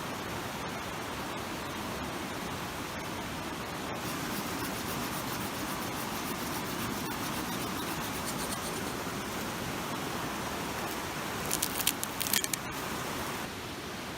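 Steady rushing water noise, with a quick cluster of sharp clicks and snaps near the end.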